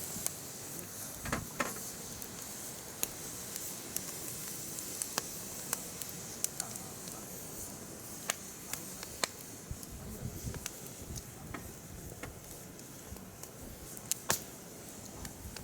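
Firewood burning in a mesh fire stand: irregular sharp crackles and pops, a few every second or two, over a faint steady hiss.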